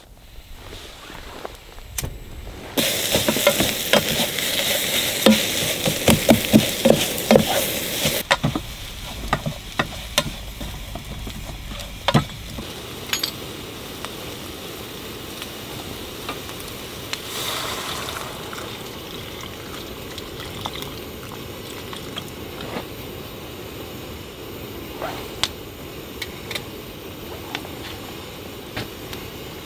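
Food frying in a pan, sizzling loudly with crackles and clicks for about five seconds, then settling to a quieter steady sizzle with scattered pops.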